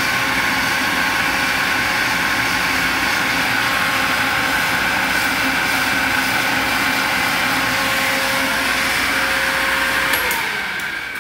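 Electric motor of a milk bulk tank washer pump running steadily with a hum and whine. About ten seconds in there is a click, and the sound fades away.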